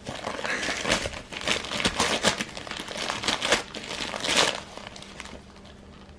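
Golden retriever puppy tearing open a present with teeth and paws: wrapping paper and clear plastic crinkling and ripping in irregular bursts, loudest about four seconds in, then dying down near the end.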